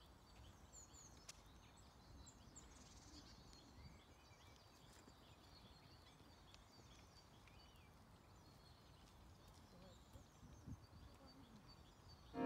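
Near silence with faint, scattered bird chirps and calls.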